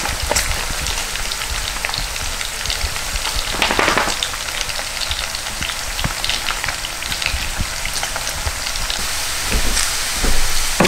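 Chopped bacon frying in a pan as it renders its fat: a steady sizzle full of small crackles and pops, flaring louder briefly about four seconds in.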